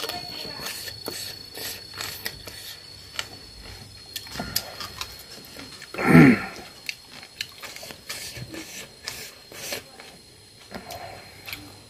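Mukbang eating sounds: wet chewing and lip-smacking clicks while fingers mix rice on a steel plate. A brief, loud voiced sound falling in pitch breaks in about six seconds in.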